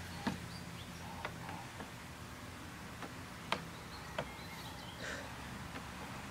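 A handful of sharp taps and knocks as a toddler climbs the steps of a small plastic slide, over a quiet background with faint high chirps.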